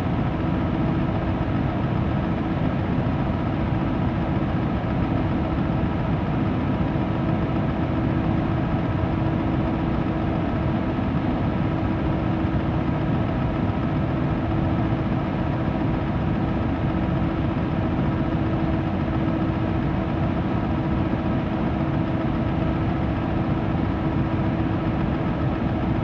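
Electric fan running steadily: a deep, even rush of air with a steady motor hum under it, used as brown noise to mask outside sounds.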